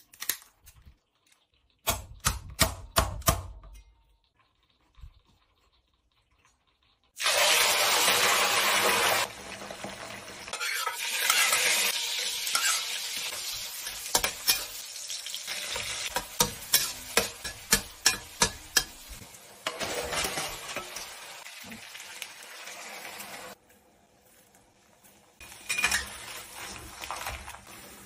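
Kitchen scissors snipping a live hairy crab a few times, then after a short pause a sudden loud sizzle as food goes into hot oil. A long stretch of stir-frying follows: dried chillies, ginger and onion sizzling in a wok over low heat, with a metal spatula scraping and knocking against the pan about once or twice a second.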